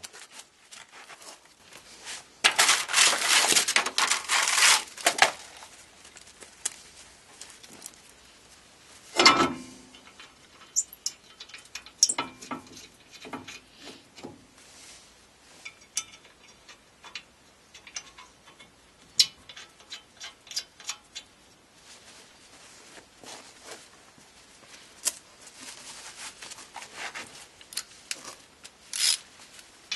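Metal clinks, knocks and scrapes as a new drilled rear brake disc is handled and fitted onto the wheel hub, with one loud knock about nine seconds in. A few seconds of steady hiss come near the start.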